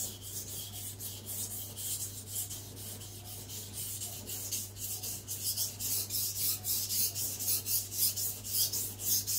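Steel chef knife blade (Zwilling Five Star) scraping back and forth on a wet whetstone in quick even strokes, about three a second, a gritty hiss that grows louder in the second half. The blade is held low to grind down and thin its thick factory edge geometry.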